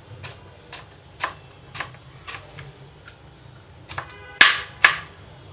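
Kitchen knife dicing eggplant, its blade tapping down onto a plastic cutting board about twice a second, with the two loudest chops near the end.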